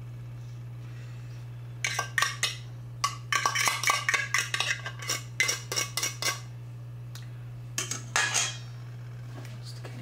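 Metal fork scraping and clinking inside a tin can of minced clams: a quick run of clicks and scrapes from about two seconds in, then a shorter burst near the end, over a steady low hum.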